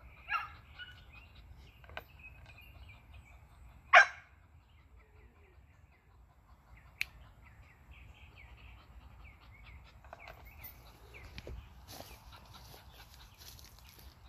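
A pit bull barks twice: once just after the start and once, much louder, about four seconds in. Small birds chirp in the background.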